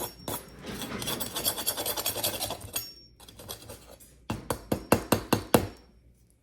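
A knife sawing through the crust of a freshly baked loaf of bread with a rapid rasp, then a quick run of several sharp knocks about four seconds in.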